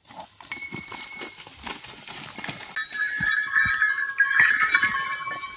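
Young bulls butting heads and scuffling on dry ground, with repeated knocks and thuds. From about three seconds in, a steady high ringing of several tones comes in over the scuffle.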